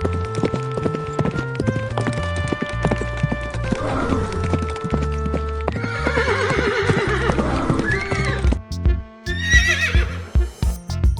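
A horse whinnying twice, a long wavering neigh about six seconds in and a higher, shrill one near the end, with a run of sharp knocks like hooves clip-clopping in the second half, over steady background music.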